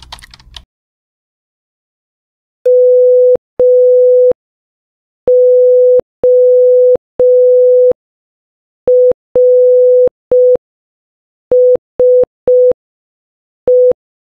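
Morse code beeps in a single steady tone spelling M-O-R-S-E (-- --- .-. ... .), sent slowly with long dashes and short dots and clear gaps between letters.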